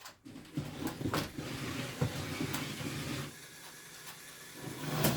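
Small electric motors of Lego combat robots whirring steadily, with plastic bricks clicking and knocking several times. Quieter for about a second past the middle, then picking up again near the end.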